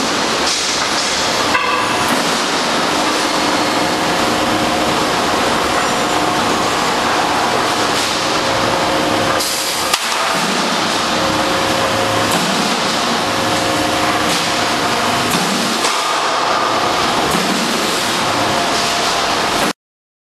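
Two-wave W-beam guardrail roll forming machine running: a steady, loud mechanical din of the drive and the forming roller stations working galvanized steel sheet, with faint high tones coming and going over it. It cuts off suddenly near the end.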